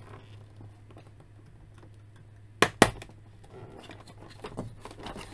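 Hands rustling and handling plastic toy packaging while freeing an action figure from its ties, with two sharp clicks close together about two and a half seconds in, over a steady low hum.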